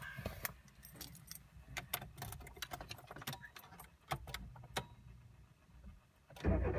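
Car keys jangling and clicking in the ignition of a 1994 Peugeot 205. Near the end the starter cuts in and the engine turns over, suddenly much louder.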